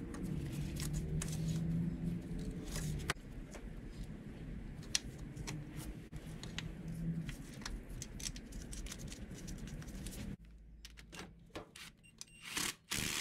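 Small clicks and rattles of gloved hands working hoses and fittings on an engine, over a steady low hum that drops away about ten seconds in. Near the end there is a short, louder burst of noise.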